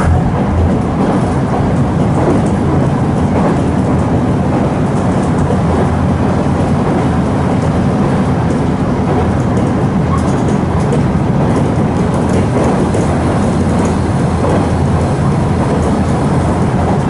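Running noise of a Nankai 2300 series electric train, heard from inside the car while it moves: a loud, steady rush of wheels on rail and motor noise.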